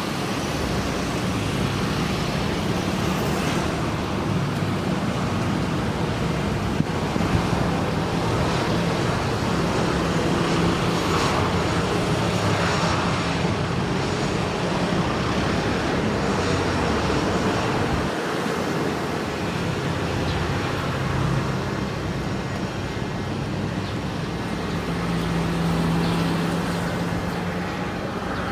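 Steady engine rumble and traffic noise with a low drone that swells briefly near the end.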